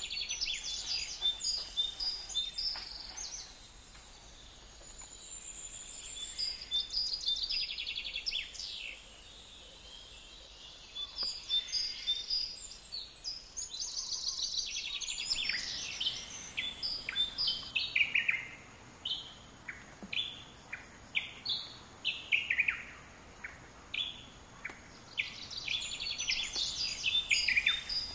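Several wild birds chirping and calling in quick series of short high notes, some sliding downward, over a faint steady outdoor hiss.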